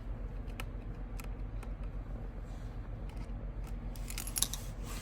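Small metal parts and tools clicking and clinking as a sewing machine is taken apart, with a quick run of ringing metallic clinks near the end. A steady low hum runs underneath.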